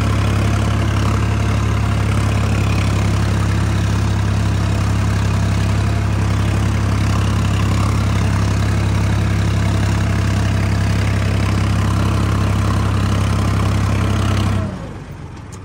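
Tractor's diesel engine running steadily with a constant low hum while pulling a seed planter through tilled soil, heard close up from the seat. The engine sound drops away sharply near the end.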